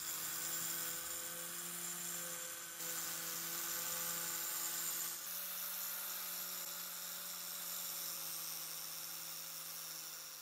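Small electric power tool's motor running steadily, with a high abrasive hiss as the tool works rust off the metal knife handle. Its level shifts slightly a couple of times and fades near the end.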